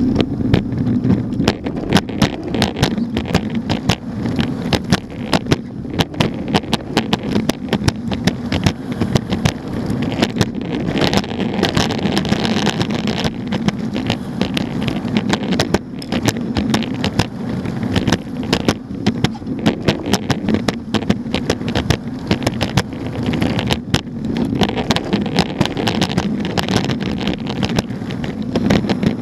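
Longboard's urethane wheels rolling fast on a concrete sidewalk, heard from right under the deck: a steady gritty rumble with frequent sharp clicks. The hiss grows brighter for a couple of seconds about eleven seconds in.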